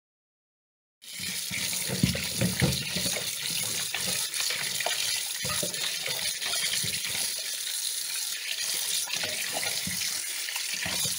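Tap water running into a steel bowl in a sink, starting about a second in, as raw pork pieces are rinsed and rubbed by hand, with splashing and soft knocks of the meat against the bowl.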